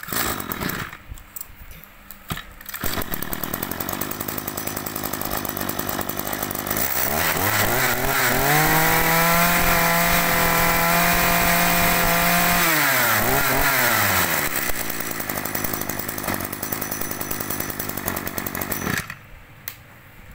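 Small two-stroke engine of a used Echo brush cutter sputters briefly, then settles into an idle. About seven seconds in it revs up to full throttle with a high, steady whine, holds for about five seconds, and drops back to idle before being shut off near the end.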